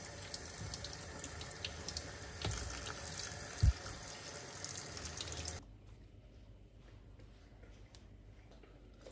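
Water running from a tap into a sink, with light clinks and one low thump about halfway through. The running water stops abruptly after about five and a half seconds, leaving quiet room tone with a few faint clicks.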